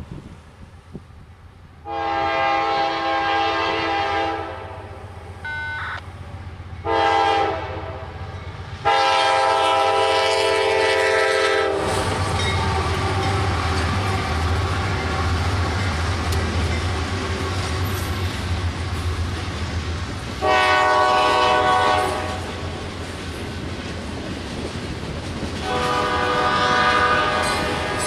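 Freight diesel locomotive's air horn sounding a series of blasts for the grade crossing: a long one about two seconds in, a short one, another long one, then two more later on. From about twelve seconds in the locomotives rumble past and the freight cars' wheels roll by on the rails.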